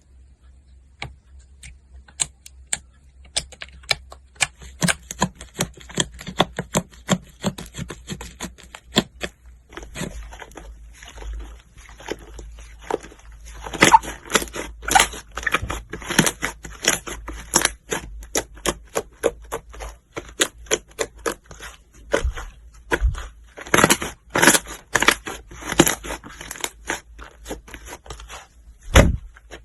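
Slime being squeezed and worked by hand, giving a dense run of irregular sticky clicks and pops that grow louder and thicker about halfway through.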